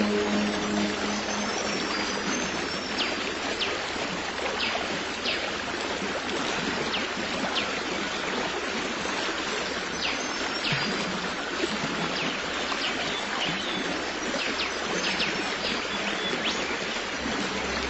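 A stream running steadily, a continuous rush of water. Brief high chirps are scattered through it.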